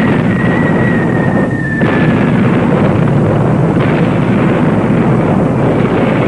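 Bombing-raid sound effects: a continuous rumble of explosions, with a high falling-bomb whistle sliding slowly down in pitch that fades out about two seconds in.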